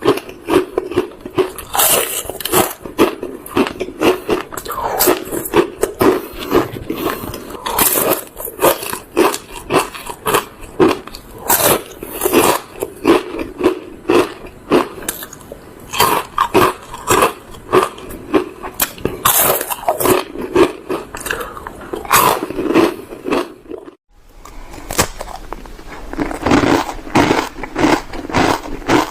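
Close-up biting and chewing of crispy food, with dense irregular crunches throughout. A brief break about 24 seconds in, then the crunching starts again.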